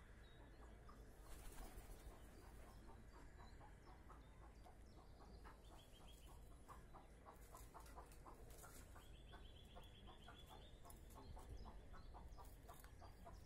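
Faint farmyard bird calls: a string of short, quiet notes several a second, with a quick high trill about six seconds in and a longer one around nine to ten seconds. A brief rustle about a second and a half in.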